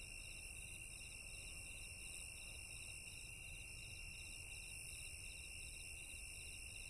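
Night chorus of crickets: a steady high shrill trill with fast repeated chirping pulses layered over it.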